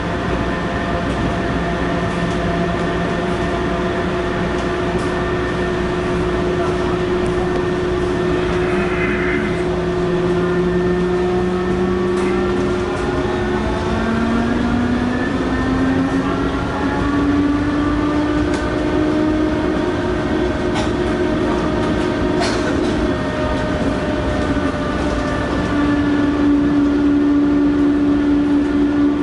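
Traction inverter of a Taipei Metro Matra VAL 256 train whining with several steady tones over a running rumble. About twelve seconds in the tones glide upward for several seconds and then hold, and a couple of sharp knocks come near the twenty-second mark. The uploader calls this whine an abnormal inverter noise.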